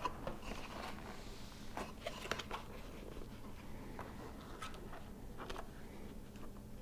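Faint handling sounds: scattered light clicks and rustles as hands push a headset's foam-covered microphone and its wire into a slot in a motorcycle helmet's padded liner.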